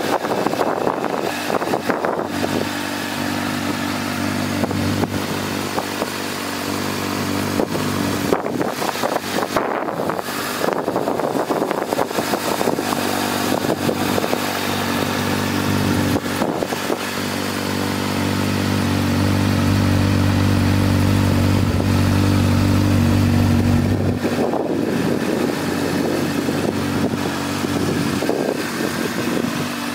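Honda CBR600F's inline-four engine idling steadily through an aftermarket Leo Vince exhaust. It gets louder for a few seconds in the second half, without much change in pitch.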